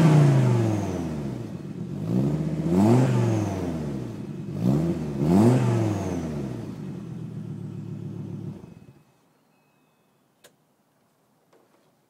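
Volvo 850's inline five-cylinder engine revved through its exhaust. It comes down from one rev, then blips three more times, settles to idle and is switched off about nine seconds in. A couple of faint clicks follow.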